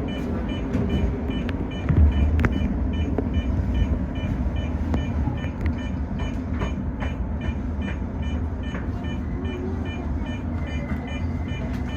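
Tōyō Rapid Railway 2000-series electric train heard from inside, up front: a steady low rumble with faint clicks and one louder thump about two seconds in. A thin steady tone comes in near the end.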